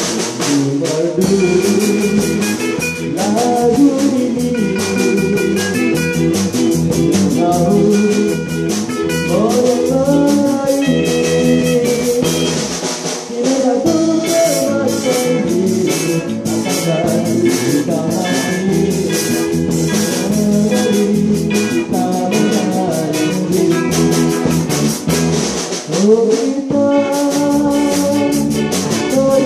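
Live band jamming a rock cover: electric guitars, bass and a drum kit with cymbals playing together, with a male voice singing into a microphone at times.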